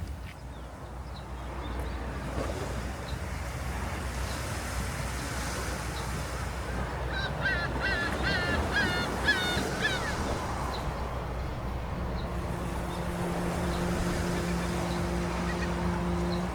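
Sea waves washing in a steady rush, with a bird calling about seven times in quick succession midway through. A low steady hum comes in near the end.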